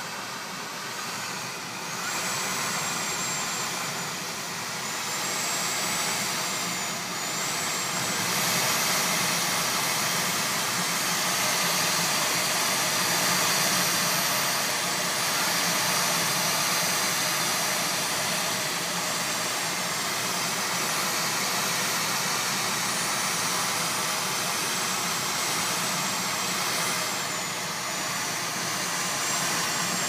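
Typhoon wind blowing hard with driving rain, a steady rushing noise that swells about two seconds in and again near eight seconds. A faint high whistle wavers above it at times.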